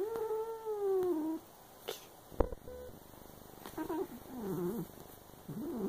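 A cat gives one long meow lasting about a second and a half that slides down in pitch at its end. A couple of sharp clicks follow, then several short, wavering cat calls in the second half.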